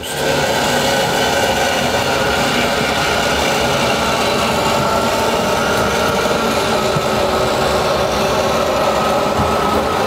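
Electric slide-out motor of a Class C motorhome running steadily as it drives the full-wall slide out, a whining mechanical drone that sinks slowly in pitch.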